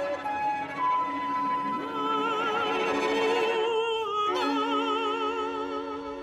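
Soprano singing long held notes with a wide vibrato over sustained notes from a chamber ensemble; the voice breaks off briefly about four seconds in and comes back on a new note.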